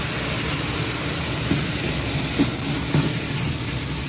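Butter sizzling and bubbling as it melts in a large aluminium pot with ginger-garlic paste added: a steady frying hiss over a low rumble, with a few light knocks in the middle.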